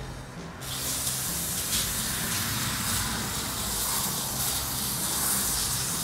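Aerosol solvent spray can hissing steadily as it flushes diesel fuel out of a wheel bearing; the spray starts about half a second in and holds without a break.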